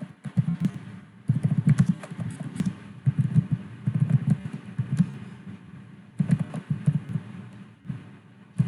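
Typing on a computer keyboard: rapid runs of key clicks in bursts of one to two seconds, with short pauses between them.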